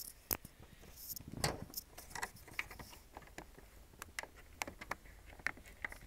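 Irregular light clicks and taps of a Big Mouth Billy Bass singing-fish toy being handled, its plastic case and mode switch fiddled with to set it to sensor mode.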